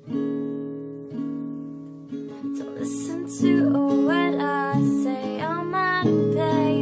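Acoustic guitar strumming chords, struck about once a second at first, then played more busily from about halfway through.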